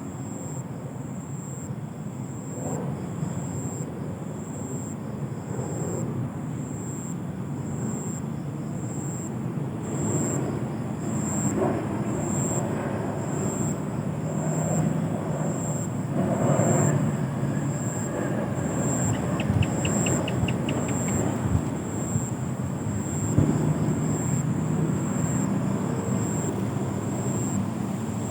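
Night insects chirping: a high, thin pulsing trill repeating in a steady rhythm, with a fainter pulsing call beneath it and a brief fast run of ticks a little past the middle. Under it runs a steady low rumble, louder than the insects.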